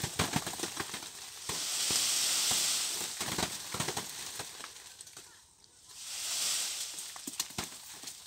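Rustling in two swells with a scattered patter of small hits on a large plastic tarp held stretched beneath a tree.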